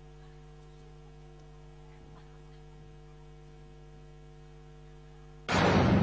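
Faint steady electrical hum over the hall's sound system, then about five and a half seconds in a sudden loud rushing boom, a stage sound effect played over the PA as the lights come up.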